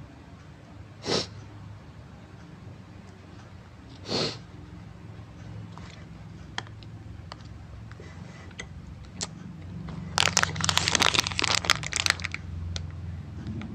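Mouth sounds close to the microphone while a cupcake is eaten: two short, loud breathy bursts about three seconds apart, then sparse small clicks of chewing. Near the end, a plastic snack wrapper crinkles densely for about two seconds.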